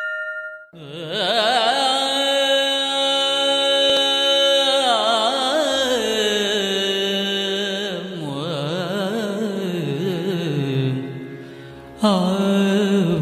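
Carnatic-style Tamil devotional music: an instrumental or hummed introduction of long held notes that bend and waver, opening just after the fading ring of a struck bell. A new phrase starts near the end.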